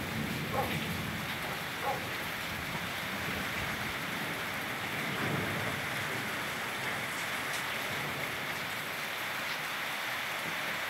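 Steady rain falling at night: an even hiss with a few faint drip taps.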